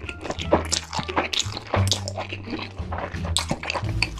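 Close-miked mouth sounds of someone eating instant noodles: wet clicks, chewing and slurping. Background music with steady bass notes runs under them.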